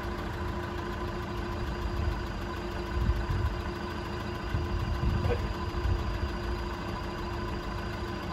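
An engine running steadily, with a low rumble and a constant hum.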